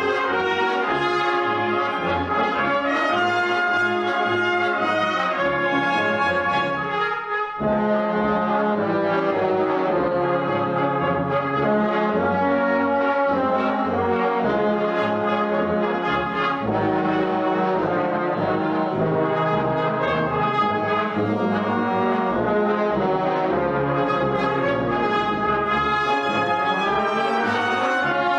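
Brass band of trumpets, trombones, horns and tuba playing a march, with a brief pause about seven seconds in before the next phrase.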